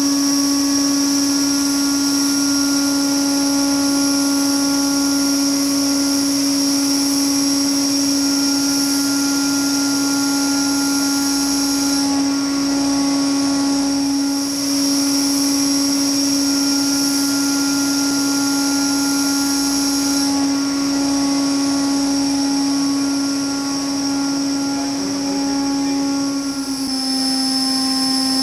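ZE-150-LT organic Rankine cycle power module running: a steady machine hum and high whine made of several fixed tones, the strongest a low hum. The tones drop slightly in pitch near the end.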